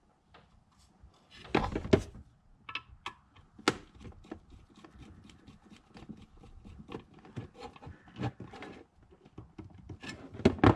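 Small screwdriver turning the terminal screw of a plastic LED controller box, making a run of light clicks and scrapes. There is a louder clatter of handling close to two seconds in.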